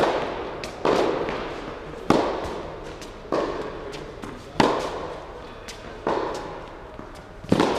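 Tennis rally on an indoor court, starting with a serve: seven sharp pops of rackets striking the ball, about one every 1.2 to 1.5 seconds, each ringing out in the hall's echo, with fainter ball bounces between.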